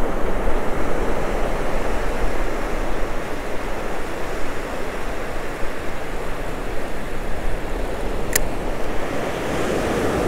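Ocean surf breaking and washing up a sandy beach, a steady rushing wash, with wind rumbling on the microphone. A single short click about eight seconds in.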